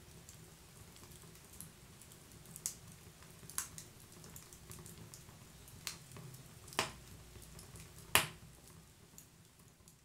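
Wood fire crackling: a low steady rumble of flames with scattered sharp pops from the burning wood, the loudest about eight seconds in. It grows softer near the end.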